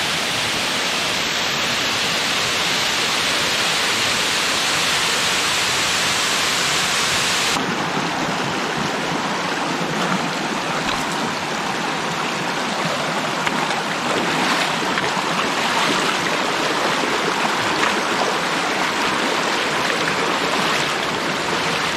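A waterfall's steady rush of falling water. About eight seconds in, it gives way to a shallow stream running over rock, with occasional splashes from boots wading through it.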